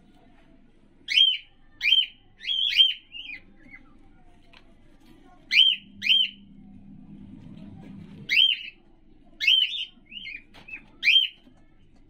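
Cockatiel giving about a dozen short, shrill calls in loose groups of two or three, each a quick swooping note.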